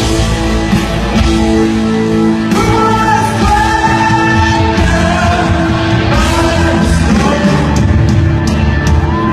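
A live rock band playing, with a sung vocal line over long held chords.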